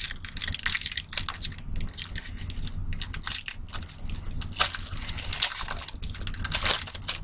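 Trading-card pack wrapper crinkling and tearing in the hands as a pack is opened, in irregular bursts of rustling.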